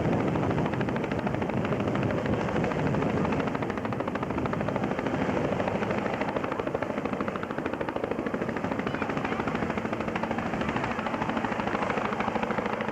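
Boeing Vertol CH-113 Labrador tandem-rotor helicopter flying close by, its rotors beating in a fast, steady chop over turbine engine noise. A steady low hum comes in about halfway through.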